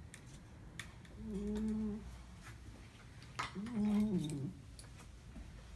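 Cat snoring in its sleep: two drawn-out, evenly pitched snores about two seconds apart.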